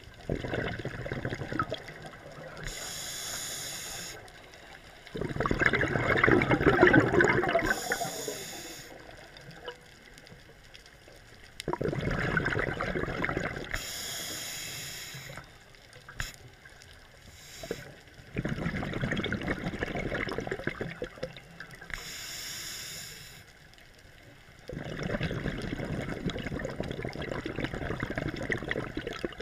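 Scuba diver breathing through a regulator underwater: a short high hiss from the demand valve on each inhale, alternating with a longer, louder rush of bubbling exhaust air on each exhale. About four breaths in all.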